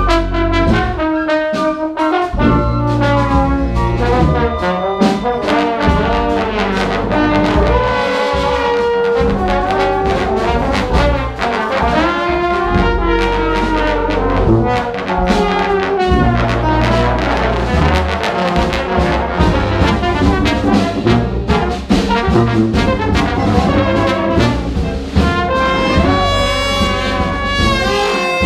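Live brass-heavy big band playing a piece together: trumpets, trombones and saxophones over tubas, with a flute line and a drum kit keeping time.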